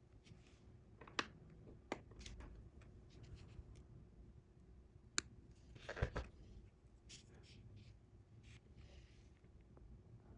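Faint rubbing and rustling of fingers working monofilament fishing line as a knot is drawn tight, with a few sharp clicks and a louder scuffle about six seconds in.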